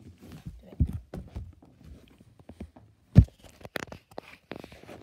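Handling noise from the camera being moved about: rustling and scattered knocks, with one loud thump about three seconds in.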